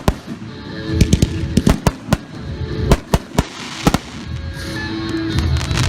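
Consumer fireworks finale barrage: a run of sharp, irregularly spaced bangs from bursting aerial fireworks, several in quick succession, giving way to a more continuous rush of noise about four and a half seconds in.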